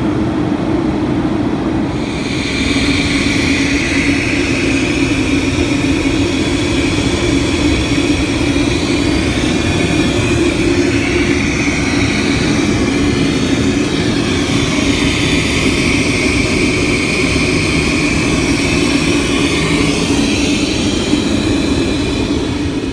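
Steady in-flight cabin noise of a Boeing 737-200 with Pratt & Whitney JT8D-17 engines: a low drone with a high whine that sets in about two seconds in and wavers slightly.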